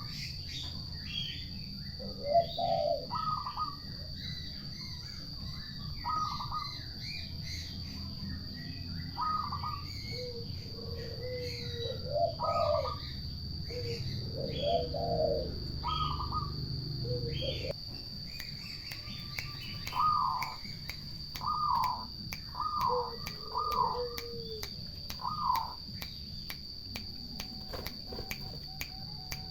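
Turtle doves calling in short, repeated phrases every second or two, with a pause of a few seconds midway. Smaller birds chirp higher up, and a steady high-pitched tone runs throughout.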